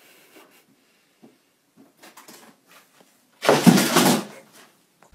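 A cat's jump ending in a loud clatter lasting about a second, about three and a half seconds in, after light rustling and scratching.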